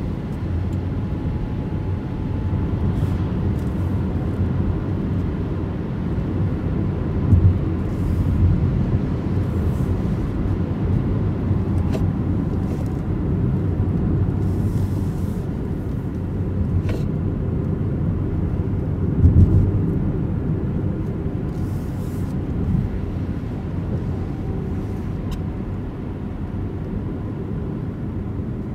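Opel Mokka-e electric car driving with no engine sound, only a steady low rumble of tyres and road, and a faint steady whine during the first few seconds. Two low thumps come about 7 and 19 seconds in.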